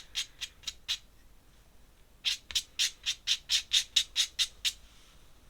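Metal dip-pen nib scratching across paper in quick repeated strokes, about four a second. A short run comes at the start and a longer run of about ten strokes from a little past two seconds in to near the end.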